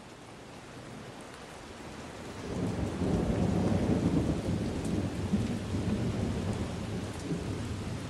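Rain falling, with thunder rumbling in low about two and a half seconds in and rolling on for several seconds as the whole sound grows louder.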